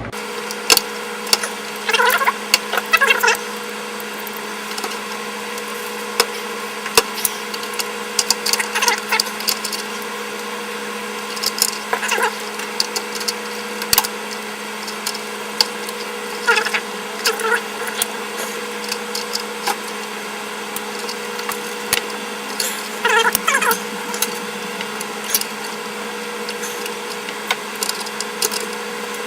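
Scattered clicks and short plastic clattering as the push-pin fasteners of a stock CPU heat sink are pressed down into the motherboard and handled. A steady hum with a few fixed tones runs underneath.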